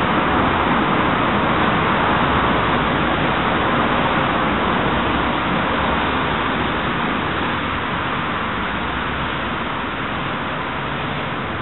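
Steady rush of road traffic, a constant noise with no distinct events, getting slightly quieter in the second half.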